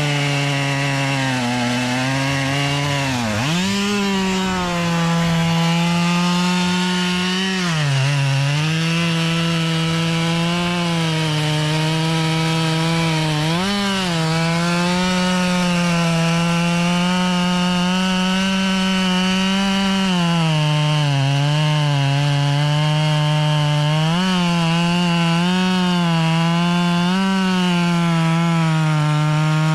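Husqvarna 572 XP two-stroke chainsaw running at high revs while cutting wood, its pitch dipping briefly and recovering several times as the chain loads up in the cut.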